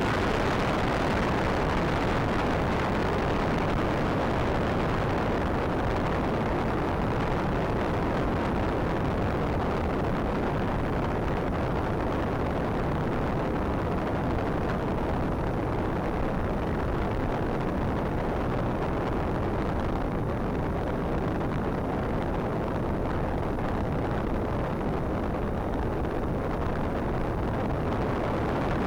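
Steady rushing air over the onboard camera microphone of a Bixler radio-controlled plane in flight, a constant noisy roar with no clear motor pitch; it turns a little duller through the middle.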